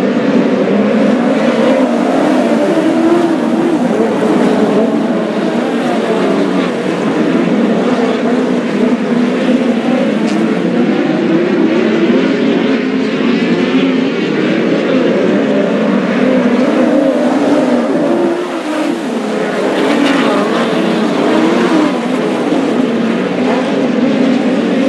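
A pack of open-wheel dirt-track race cars running around the track together, several engines sounding at once, their pitch rising and falling as they lap.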